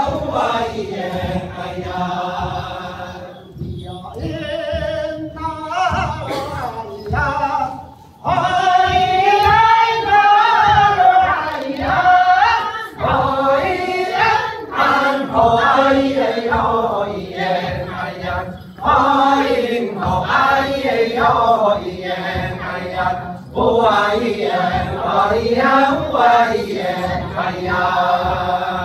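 Mixed choir of women and men singing an Amis folk song together. The singing is quieter for the first few seconds, then the full group comes in louder about eight seconds in.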